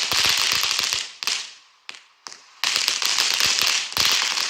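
Crackling fountain firework: a dense, rapid crackle that dies away after about a second, a couple of single pops in the lull, then full crackling again from a little under three seconds in.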